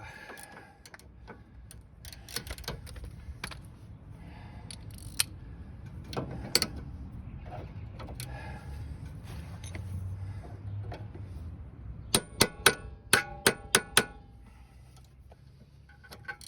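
Metal hand tools (a wrench and hex bit) clinking and scraping on a rusted sway bar link while someone tries to break its nut loose, then a quick run of about seven loud, ringing metallic clanks near the end.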